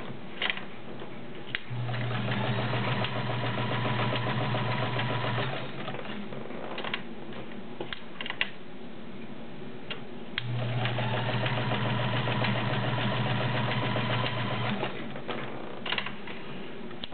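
Kenmore 1601 all-metal sewing machine with a 1.2 amp motor, stitching through a thick stack of fabric. It runs steadily in two spells of about four seconds each, with a few short clicks between them.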